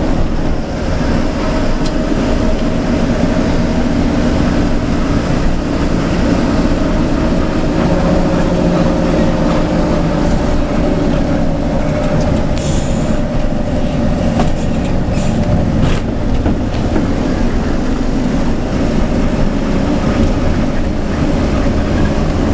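Mercedes-Benz OF 1623 bus's front-mounted diesel engine running steadily under way, a continuous drone that shifts a little in pitch with the road, heard from inside the cabin next to the engine. Tyre and road noise run underneath, with a few short clicks around the middle.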